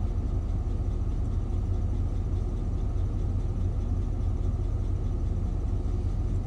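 Vehicle engine idling, a steady low rumble heard from inside the cab.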